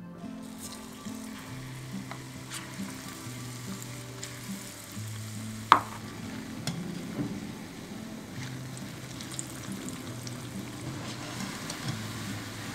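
Mini aloo bondas (besan-battered potato balls) deep-frying in hot oil in a kadai: a steady sizzle as a wire skimmer stirs them, with light clicks. About six seconds in, a single sharp metallic clink of the skimmer against the pan.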